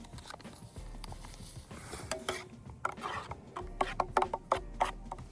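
Small metal camp cookware being handled: quick clinks and rattles, each with the same short ringing note, coming faster and louder in the second half.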